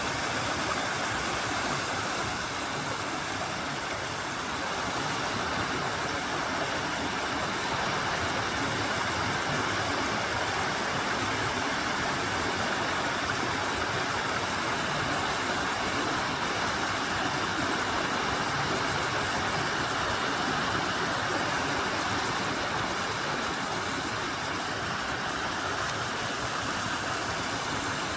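Mountain valley stream running: a steady, even rush of water.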